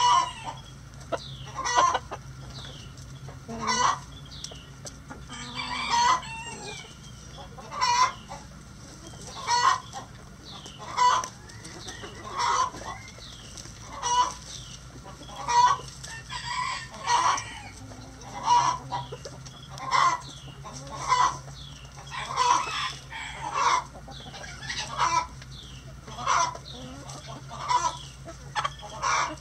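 Flock of backyard chickens clucking as they peck at feed, short calls coming about every one and a half to two seconds.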